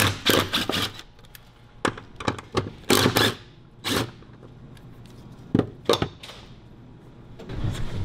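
Cordless DeWalt power driver spinning in several short bursts as it runs out the bolts of an underbody bracket, with the loudest bursts about three seconds in.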